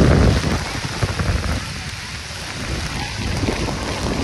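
Storm rain hissing steadily while gusts of wind buffet the microphone in an irregular low rumble. The gusts are strongest at the start, ease off about two seconds in, then build again.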